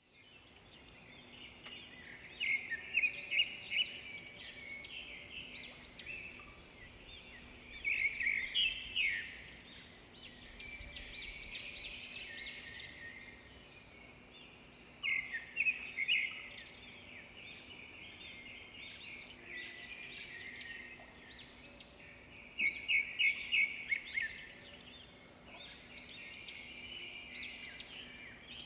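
Several songbirds chirping and singing at once, with short rapid trilled phrases standing out every few seconds over a faint steady hum.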